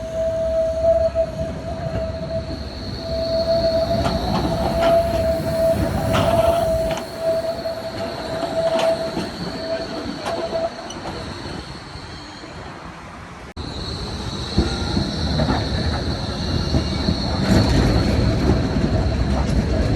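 Bombardier Flexity tram's wheels squealing on the rails through a tight 90-degree curve: two steady high squeal tones, one piercing and one lower, over the rumble of the running gear. The sound breaks off abruptly about thirteen seconds in and the piercing squeal resumes, louder.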